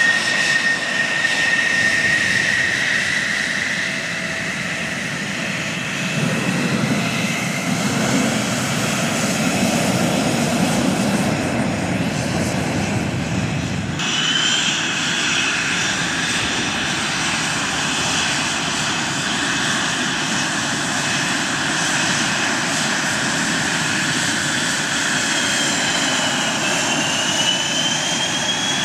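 Fighter jet engines whining over a steady jet rumble at taxi: first an F-16 Fighting Falcon, then a CF-18 Hornet's twin engines. About halfway through, the whine shifts higher, and it dips and rises again near the end.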